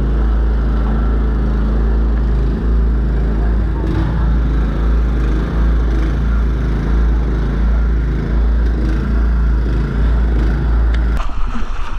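Small petrol-engine water pump running steadily, pumping seawater through a hose into the boat's hull to flood and sink it. The steady engine sound gives way abruptly near the end.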